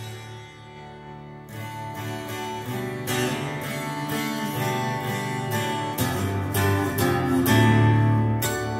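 Music with strummed acoustic guitar, played back through a custom car audio system with Accuton speakers and heard inside the car's cabin. The strumming grows louder toward the end.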